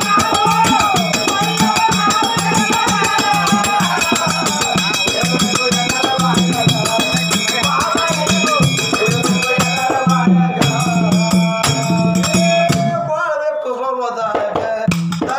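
Amplified Kannada folk singing of a dollina pada (dollu song), a male voice over steady rhythmic percussion and a sustained low drone. About thirteen seconds in, the drone and percussion drop out for a moment, then return just before the end.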